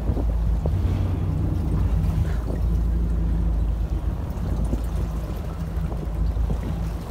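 Fishing boat's engine running steadily at a low hum, with wind on the microphone.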